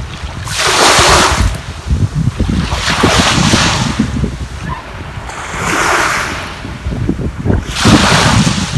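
Sea waves washing in four times, each a swelling hiss about two and a half seconds apart, with wind buffeting the microphone throughout as a low rumble.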